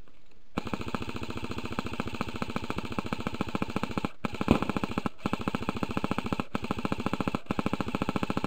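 Airsoft gun firing on full auto: a fast, even stream of shots starting about half a second in, broken by four brief pauses between long bursts.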